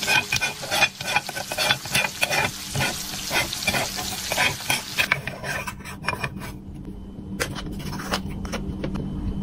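Wooden spatula scraping and tapping in a small toy frying pan over a sizzling frying sound, which fades about five seconds in and leaves scattered clicks over a steady low hum.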